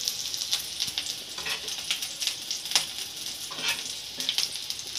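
Chicken kababs sizzling steadily in shallow oil in a pan over medium heat, browned on both sides and done. A few short clicks of a spatula against the pan come as they are lifted out.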